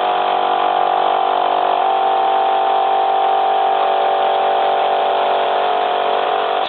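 Mateus twin-piston air compressor running steadily on a test run, just after new intake and discharge valves were fitted in its head, with a steady hum and a strong constant tone.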